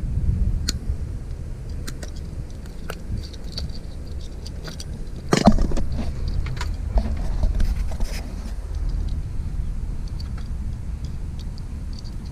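Small plastic wiring-harness plugs and clips being handled, giving scattered light clicks and rattles, with a louder clatter about five seconds in. Wind rumbles on the microphone throughout.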